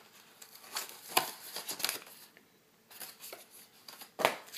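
Plastic packaging handled by hand: short crinkles and rustles with a few sharp clicks, and a brief quiet spell about halfway through.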